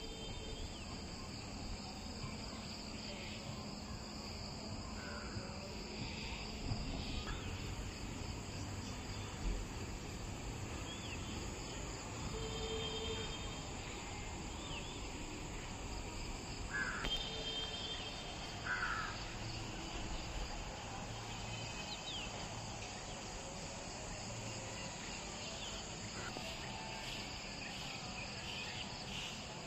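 Early-morning outdoor ambience over a town: a steady high-pitched insect drone, with scattered bird chirps and a few short caws from crows.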